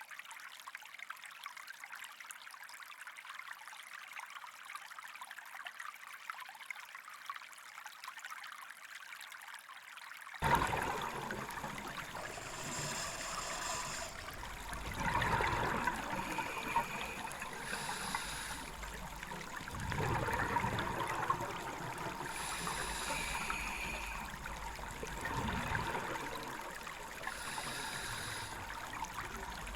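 Running, trickling water as a steady rushing noise. About ten seconds in it changes abruptly to a fuller, louder water sound, with short high tones recurring every few seconds.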